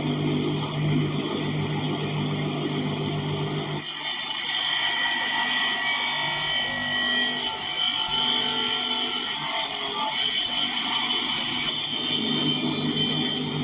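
AFACAN 10 HP metal-cutting circular saw with a 7.5 kW motor running with a steady hum. About four seconds in, a loud high-pitched screech sets in as the 520 mm blade cuts into metal, lasting about eight seconds before it drops back to the motor's hum.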